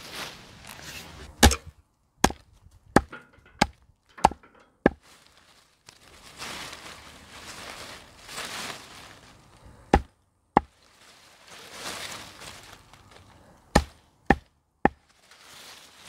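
Hatchet chopping the stem ends of a birch bath broom against a wooden stump: sharp chops about half a second apart, six, then two, then three, with leaves rustling in between.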